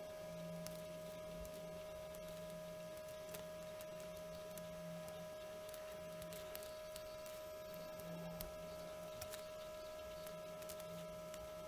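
A steady high-pitched electrical hum, with a lower hum that comes and goes every second or two and scattered faint clicks.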